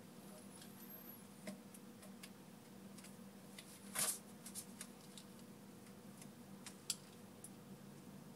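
Small sharp clicks and ticks of a precision screwdriver and tweezers on the iPhone 4's metal frame as tiny screws with metal rings are fitted, the loudest click about four seconds in. A faint steady hum lies underneath.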